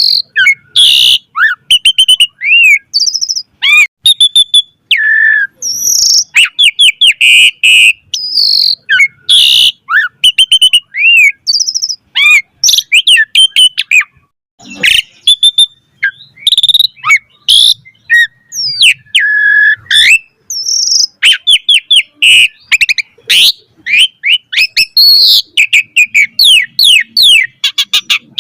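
Asian pied starling (jalak suren) singing vigorously: a long, varied song of loud whistles, rising and falling slurs, rapid rattling trills and sharp chirps, broken by short pauses.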